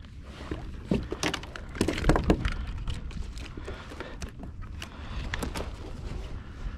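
Irregular knocks, clicks and rattles of fishing gear being handled on a kayak, loudest about one to two and a half seconds in.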